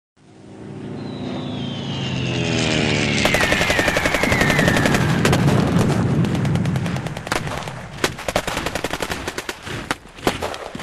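Fireworks going off: a whistle falls in pitch over a few seconds, then a dense run of rapid crackling bangs like a string of firecrackers takes over and thins out into scattered bangs near the end.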